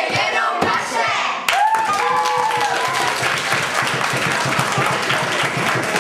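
A roomful of children talking and laughing excitedly, then from about a second and a half in, a group of children clapping together, with a voice calling out over the applause.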